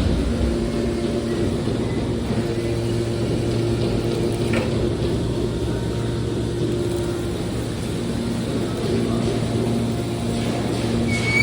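Drum baler press machine running with a steady mechanical hum, with a faint click about four and a half seconds in.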